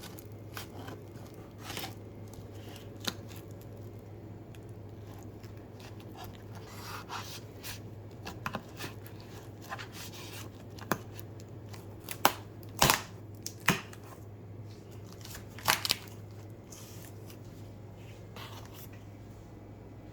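Packaging being handled and opened: scattered rustling, tearing and cutting sounds with short clicks, and a few sharp knocks in the second half, over a steady low hum.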